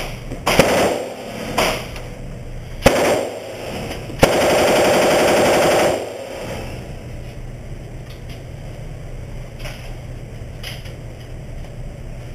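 Gunfire: three single shots about a second apart, then a sustained fully automatic burst of about two seconds from a machine gun.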